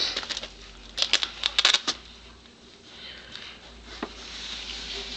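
Light plastic clicking and clattering of felt-tip markers handled against a TV remote control. Quick runs of clicks at the start and again from about one to two seconds in, then a single click about four seconds in.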